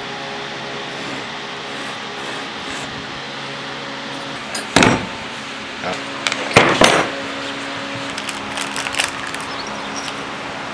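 Steady hum of a shop fan, with a few clattering knocks of tools and hardware handled on a wooden workbench about halfway through, followed by lighter clicks.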